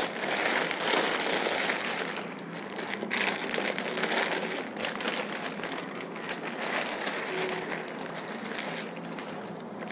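Plastic packaging crinkling and rustling: a black plastic courier mailer and a clear polythene garment bag are handled and opened as a folded jacket is pulled out of them.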